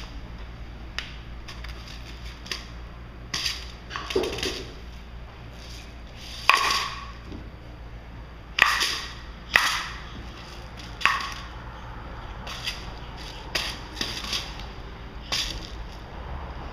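Plastic soda bottle knocked, crinkled and batted across a tile floor by a baby's hands: a dozen or so irregular sharp knocks and crackles, the loudest a little past the middle.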